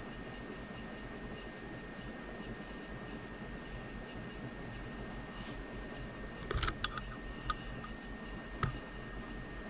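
Steady background noise with a faint constant high-pitched tone, and a few short clicks and taps about two-thirds of the way through.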